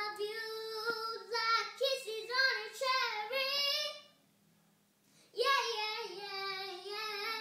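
A young girl singing alone with no accompaniment: one phrase, a short pause about four seconds in, then a second phrase.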